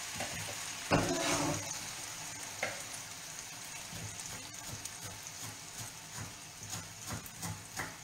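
Farro gnocchetti and broccoli sizzling steadily in a frying pan, with a short clatter about a second in. Light knife taps on a wooden chopping board come in the second half as parsley is chopped.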